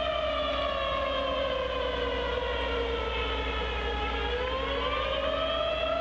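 Siren wailing: its pitch slides slowly down for about four seconds, then climbs back up near the end.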